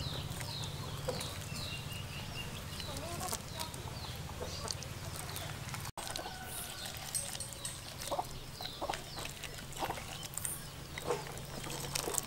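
Short bird calls over a low steady hum. After about six seconds come scattered sharp wet clicks as a hand pulls the innards out of a cut-open fish.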